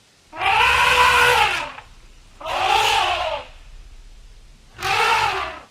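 Elephant trumpeting, three calls in a row, each rising and falling in pitch; the first is the longest and the last the shortest.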